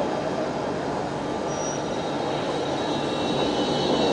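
City tram rolling along street track, its rumble growing louder over the last second or so as it comes closer, with faint high squealing tones from the wheels coming in near the end.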